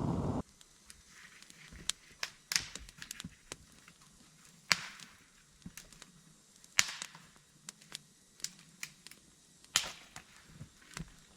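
Wood fire crackling, with irregular sharp pops and snaps every second or so and fainter ticks between. A loud rushing noise cuts off abruptly about half a second in.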